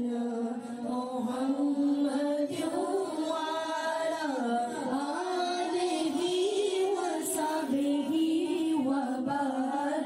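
A solo voice singing or chanting a slow devotional melody without instruments, its pitch gliding and bending between held notes.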